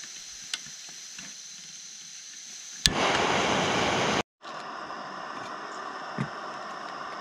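Fire Maple Fixed Star 2 gas canister stove hissing. About three seconds in, a sharp click comes, then a louder rushing hiss for about a second that breaks off abruptly. After that the burner runs with a steady hiss under its heat-exchanger pot.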